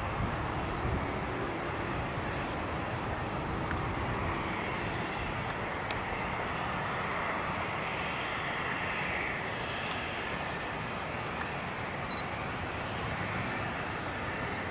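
Embraer ERJ-145 regional jet's two rear-mounted Rolls-Royce AE3007 turbofans running at low power as it taxis, a steady jet noise with a whine that swells slightly partway through.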